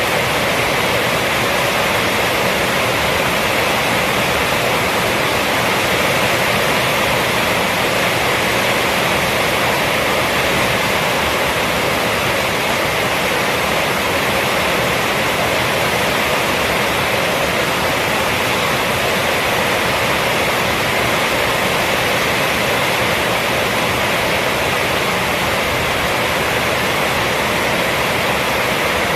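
Rainstorm rain falling steadily on a roof: a dense, even hiss with no single drops or thunder standing out.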